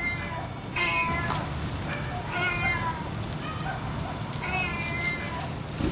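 A cat meowing repeatedly: three short calls about two seconds apart.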